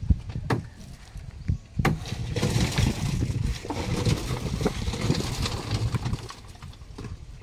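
Construction work on a foundation: two sharp knocks in the first two seconds, then several seconds of rough scraping noise over a low rumble.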